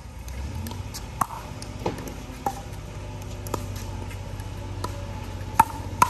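Pickleball rally: hollow plastic ball struck by paddles and bouncing on a concrete court, a string of sharp irregular pops with a short ring, the two loudest near the end, over a steady low hum.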